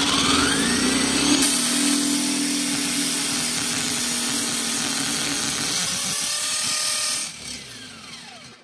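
Corded electric drill boring a step drill bit into stainless steel, running steadily at full speed, then winding down with a falling whine about seven seconds in.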